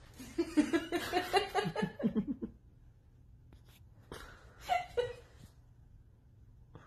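A person laughing in a quick run of short bursts for about two and a half seconds. A shorter voiced sound follows about four seconds in.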